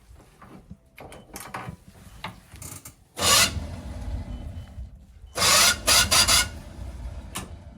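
Step van starter engaged twice in harsh grinding, rasping bursts, the second longer and broken into several pulses. The starter slips against the flexplate instead of turning the engine over cleanly, though it has been tightened several times.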